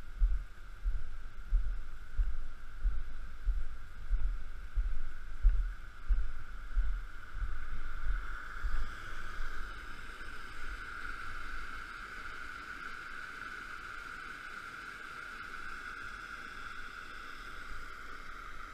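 Wind buffeting the microphone in uneven gusts for the first half, over a steady rushing hiss of water spilling over a small concrete weir. The water grows louder about halfway through as the wind dies down.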